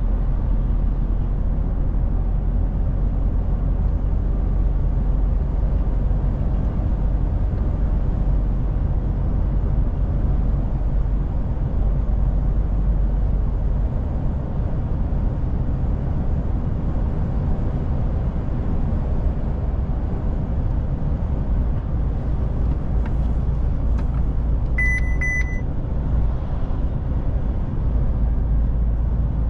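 DAF truck's diesel engine droning steadily under way, with road noise. Near the end comes a quick run of short, high-pitched electronic beeps.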